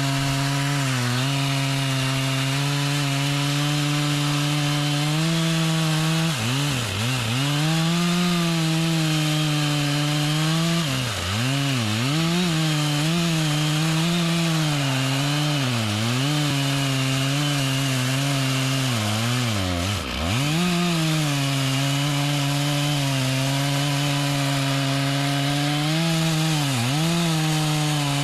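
Two-stroke chainsaw at high revs cutting mahogany wood. The engine pitch dips and recovers several times as the chain bogs under load in the cut.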